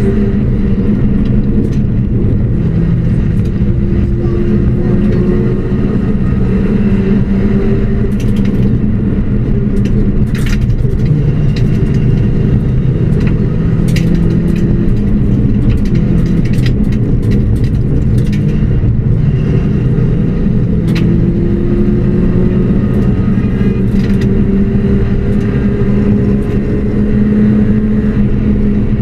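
Ford Puma rally car's four-cylinder engine running hard at stage speed, heard loud from inside the cabin, its pitch stepping up and down again and again through gear changes and lifts. Scattered sharp clicks and knocks come through over the engine.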